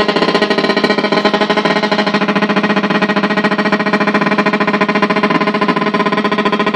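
VOX AD30VT modelling guitar amp motorboating: a loud, rapid, even pulsing buzz from the speaker that holds steady throughout. The fault is an overheating 15 V voltage regulator (7815/7915) on the amp's power board.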